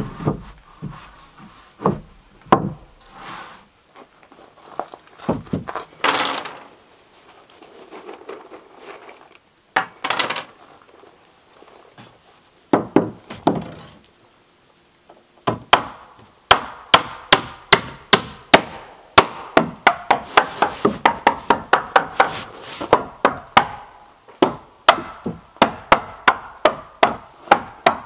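Hammer striking nails into wooden porch deck boards. The first half holds scattered knocks and two brief scraping sounds. From a little past halfway comes steady hammering, about three blows a second.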